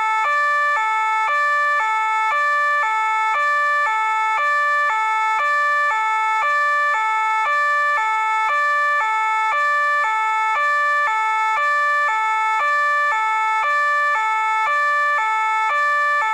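French police two-tone siren (deux-tons, 'pin-pon') sounding continuously, alternating evenly between a lower and a higher note, each held for a little under half a second. The level stays steady, with no rise or fall in pitch beyond the two notes.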